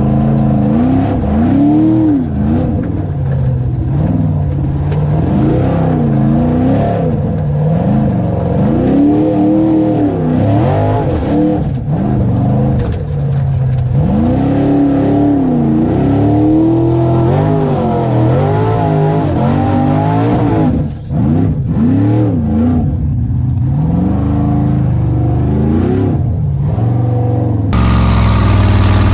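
Formula Offroad buggy's engine heard from the onboard camera, revving up and down over and over as the driver works the throttle through the mud. Near the end it settles to a steadier, lower running.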